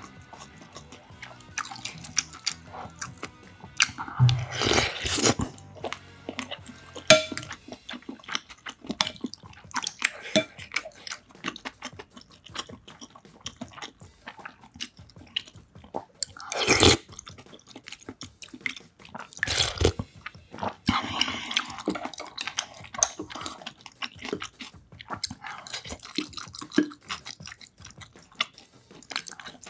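Close-up eating sounds: chewing and slurping of rice cake and dumpling soup taken from a spoon, with many small sharp clicks. Louder slurps come about five seconds in, around seventeen seconds and around twenty seconds.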